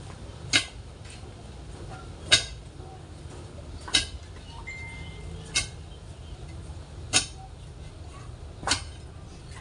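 A metal digging tool striking hard ground in slow, steady strokes: six sharp clinking blows, about one every one and a half seconds.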